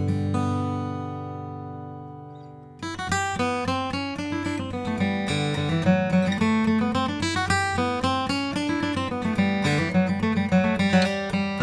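Gibson J-45 True Vintage acoustic guitar (Adirondack spruce top, solid mahogany back and sides) being played: a chord rings out and fades for nearly three seconds, then the playing resumes with a quick run of picked and strummed notes.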